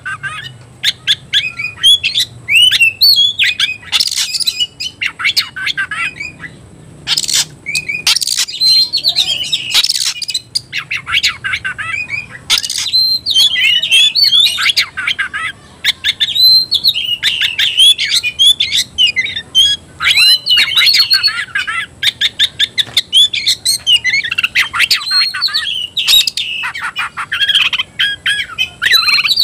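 Oriental magpie-robin (kacer) in full, loud song: a near-continuous stream of quick, varied whistles and chatter with short pauses, and a few harsh rasping notes mixed in. This is the agitated, fired-up singing of a male ready to challenge a rival.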